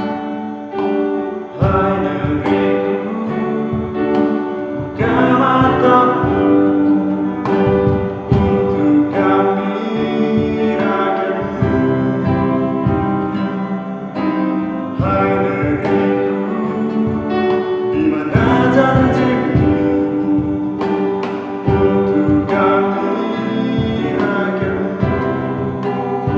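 A small acoustic band playing a song: acoustic guitar, keyboard and cajon beats, with a man singing the melody.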